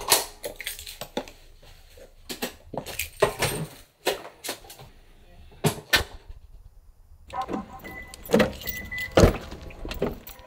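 Handling and movement noises: a run of irregular knocks, clicks and rustles, with a door and jangling keys. The sound drops out briefly about six seconds in, and there is a loud sharp knock near the end.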